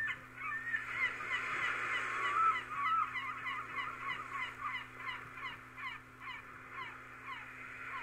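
A flock of birds calling over one another, many short falling calls several a second, with a couple of longer wavering calls about two to three seconds in.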